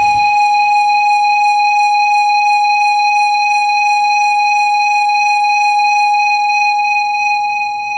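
Noise-music electronics: a dense low rumbling noise cuts out right at the start, leaving a single loud, steady high-pitched whine with overtones that fades away near the end.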